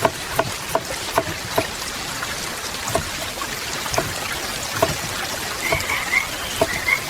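Steady rain with heavy drops dripping and tapping on a roof at irregular intervals. A short chirping call comes in near the end.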